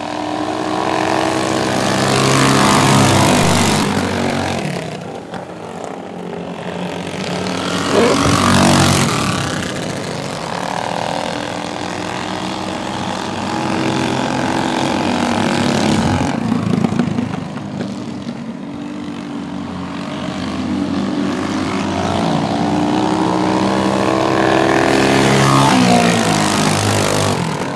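Small racing engines of several minibikes running hard on a dirt oval, their pitch rising and falling as they pass and as the riders throttle on and off through the turns. Two or three engines overlap, swelling loudest as the bikes go by about 3, 8 and 26 seconds in.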